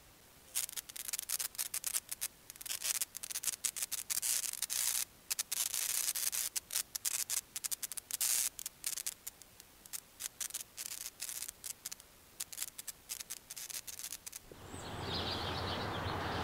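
Fast, irregular rough scratching strokes, coming in quick flurries with short gaps, for most of the clip. About fourteen and a half seconds in they stop, and a steadier outdoor background with birds chirping takes over.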